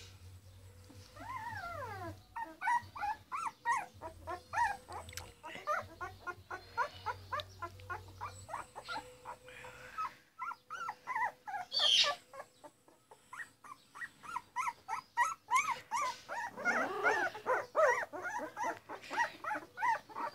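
Several young puppies whimpering and squeaking in a continuous stream of short high cries, several a second. There is a longer falling whine about a second in and a sharper, louder squeal a little past the middle.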